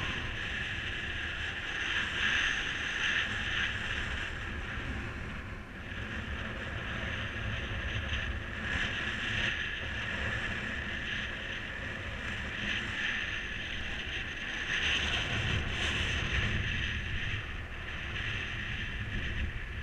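Wind rushing over the microphone in flight, rising and easing in gusts, with a low rumble underneath.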